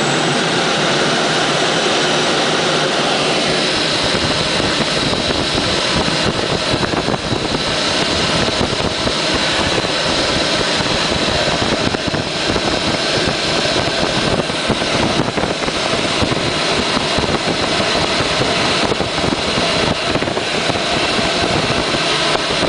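Steady rush of airflow in the cockpit of an engineless Bocian glider, low on its landing approach. A deeper rumble joins about four seconds in.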